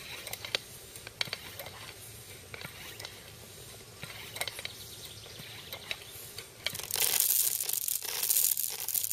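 Airsoft BBs pouring off a paper funnel into a homemade PVC airsoft minigun, a loud dense rattling rush that starts about two-thirds of the way in and surges unevenly. Faint scattered clicks come before it.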